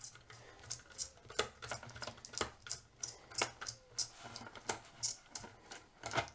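Phillips screwdriver undoing a screw in the plastic base of a Humax FVP-5000T Freeview box, making a run of light clicks about two or three a second as the screw turns.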